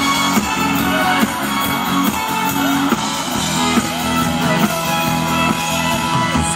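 Live pop-rock band playing through a PA: electric guitar and drum kit carrying a steady beat.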